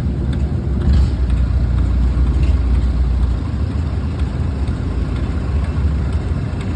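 Long-tail boat engine running steadily, heard as a deep, even rumble.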